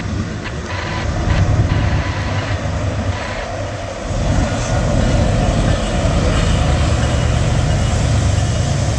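Norfolk Southern freight train rolling past: a steady low rumble of the diesel locomotive and rolling cars that grows louder about four seconds in.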